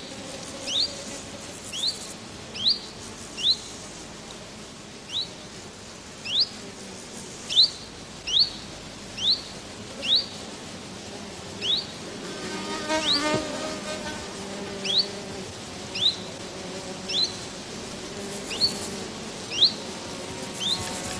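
A small bird repeats a short, high, rising chirp about once a second, over the faint steady buzz of insects. Around the middle a louder, wavering buzz swells and fades, like a bee or fly passing close.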